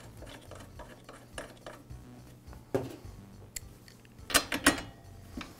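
Light metallic clicks and clinks of hand tools as a spark plug is threaded into a blower's engine cylinder and a chrome socket and extension are brought to it. The loudest cluster of clinks comes about four and a half seconds in.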